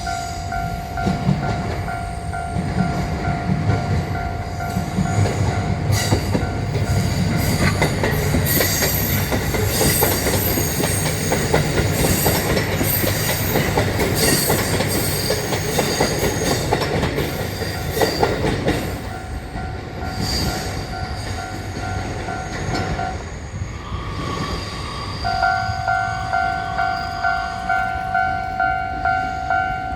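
Japanese railroad crossing warning bell ringing as a JR train passes, with the rumble of the train and squealing from its wheels. The bell stops near the end, then starts ringing again in a pulsing rhythm of about two strokes a second.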